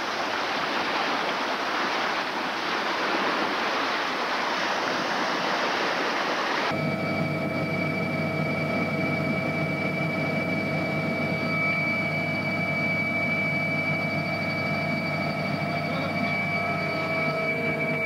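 Lake Baikal's water washing and splashing against the shore in a steady rush, cut off abruptly about seven seconds in. It is replaced by a steady mechanical hum with a thin high whine, like a running engine.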